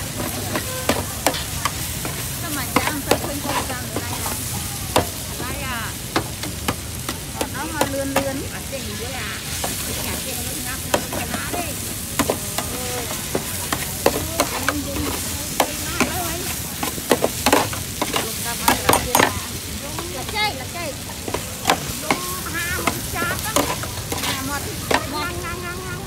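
Food frying and sizzling on a hot pan as it is stir-fried, a steady hiss broken by frequent sharp clicks of a utensil striking the pan, busiest a few seconds past the middle.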